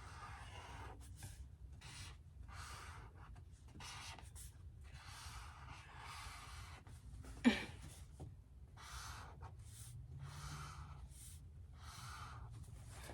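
Repeated short rubbing strokes on paper as a vision board is put together, with a brief sharp squeak about seven and a half seconds in.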